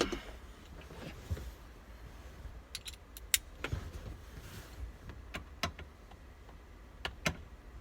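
Scattered sharp clicks and light metallic clinks of hand tools and small parts being handled, with some soft rustling in between.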